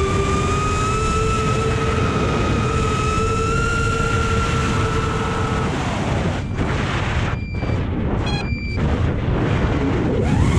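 FPV quadcopter's electric motors whining steadily under loud wind rush on the onboard camera's microphone, the pitch creeping slowly upward. A little before halfway the motor whine drops away, leaving only wind noise with a few brief gaps, and the motors spool back up right at the end.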